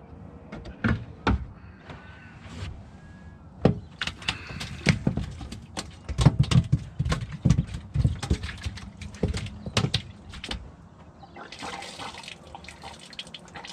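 Water splashing and sloshing with a quick run of sharp knocks and clicks, busiest in the middle, then easing to a quieter wash of water near the end.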